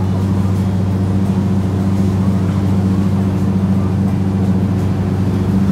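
Tour boat's engine running steadily at low speed, a constant low hum with a deep pitched tone that does not change.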